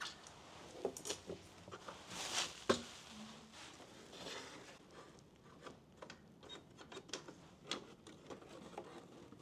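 Handling of an old plastic toy mortar and its tripod stand: scattered light clicks and knocks of plastic parts, with a louder stretch of rustling about two seconds in that ends in a sharp click.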